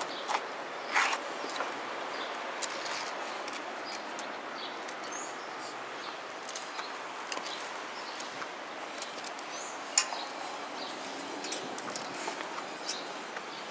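Outdoor background hiss with a few brief, high bird chirps and scattered light clicks and taps, one sharper click about ten seconds in.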